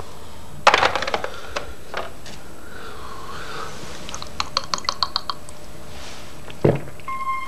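Wall-mounted intercom handset hung back on its plastic wall cradle with a clatter of clicks about a second in. A quick run of light clicks follows midway, and a short dull sound comes near the end.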